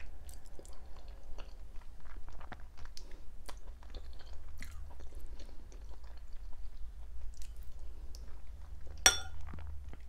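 Close-miked chewing and eating of dolma, soft stuffed vine leaves and onions with rice, with many small mouth clicks. A single short ringing clink about nine seconds in is the loudest sound.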